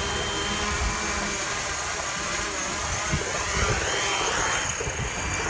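DJI Mavic Pro quadcopter's motors and propellers whirring at close range, a steady buzz with a high whine that rises in pitch a few seconds in.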